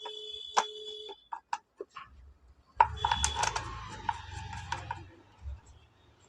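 Irregular clicks, knocks and light metal clinks of chainsaw parts being handled and fitted by hand, such as the chain brake assembly going onto the saw. A brief ringing tone sounds under the clicks in the first second and again in the middle.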